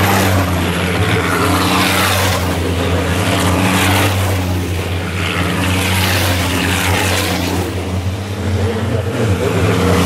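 Racing trucks' big diesel engines running loud past a circuit, a steady low drone underneath with engine notes that rise and fall as the trucks go by.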